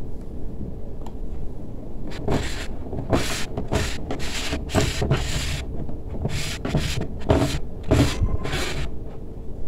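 Stiff, crinkly gele headtie fabric rustling and crackling in about ten irregular, short bursts as a hand handles and turns the mannequin head wearing it, over a faint steady hum.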